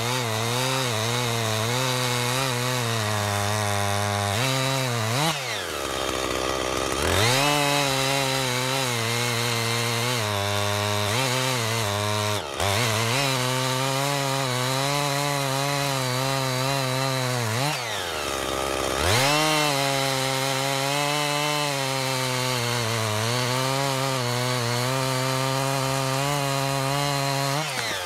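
Two-stroke gas chainsaw cutting through a log under load, its pitch wavering. Twice the engine revs up high for a second or so, then drops back into the cut. The saw runs a new chain on a bar ground at an angle to imitate a worn bar, which makes it pull off line and bog down when it is forced to cut straight.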